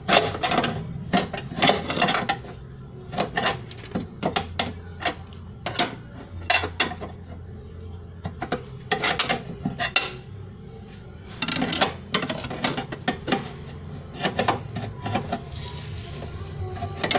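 Irregular metal clinks and knocks of tools and suspension parts being handled, with a low steady hum underneath at times.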